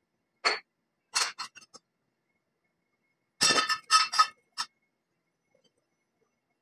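Loose steel parts clinking and clanking as they are handled and set down on the steel bed of a hydraulic press: a few single knocks, then a quick run of several louder clanks about three and a half seconds in.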